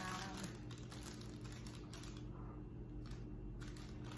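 Soft rustling and small clicks of a clear plastic bag of sliced salami being handled, over a steady low hum.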